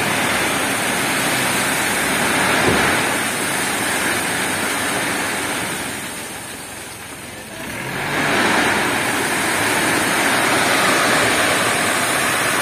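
Crushed gravel sliding off the tipped bed of a mini dump truck: a continuous rushing clatter that eases off about six seconds in and surges again a couple of seconds later, with the truck's engine running underneath.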